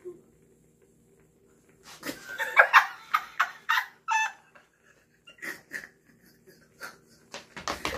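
A woman's shrill, squealing laughter in rapid bursts from about two seconds in, with a few more a little later: a disgusted reaction to chewing a silkworm pupa. It ends in coughing near the end.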